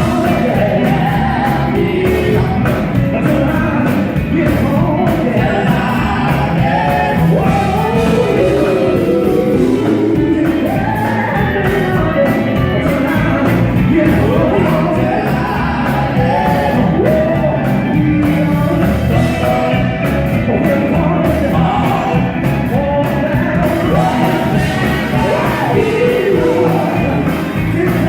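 Gospel quartet singing live with instrumental backing, lead voice and group voices over a steady beat, with some shouted lines.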